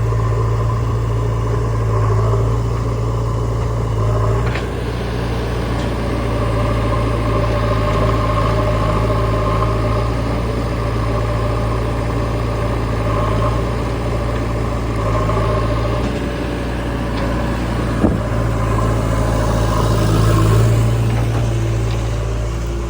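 Diesel engine of a JCB 3DX backhoe loader running steadily while it loads mud into a tractor's trailer. Two sharp knocks break through the engine sound, one a few seconds in and a louder one later.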